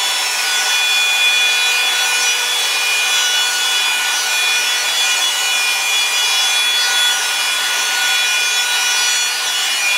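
Revlon One-Step hair dryer brush running steadily, a whirring motor whine over a rush of air, as it is brushed through a curling section of hair to straighten it.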